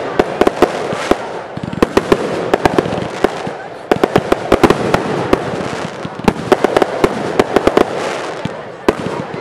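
Aerial fireworks bursting in a rapid barrage: sharp bangs several times a second over a continuous crackle, with brief thinner moments between volleys.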